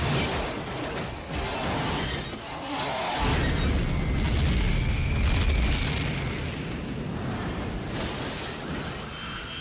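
Action-film sound effects of an airliner in trouble: a dense rattling, crashing din with a deep rumble that swells about three seconds in and eases off after six, and a faint high whine above it.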